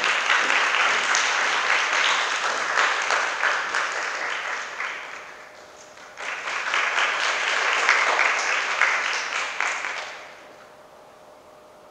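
Audience applauding. The clapping dies away about five seconds in, a second round starts suddenly about a second later and stops about ten seconds in.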